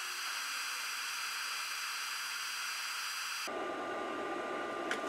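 Handheld induction heater running with its coil around a seized steel stud, heating it: a steady hiss with a thin high whine. About three and a half seconds in, the sound shifts and a lower steady whine takes over.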